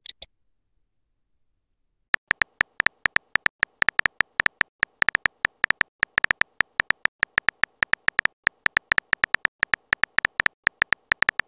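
Texting-app keyboard sound effect: a rapid run of short, high electronic ticks, one per keystroke at about seven a second, starting about two seconds in. A short blip comes at the very start, and a rising swoop begins right at the end as the message is sent.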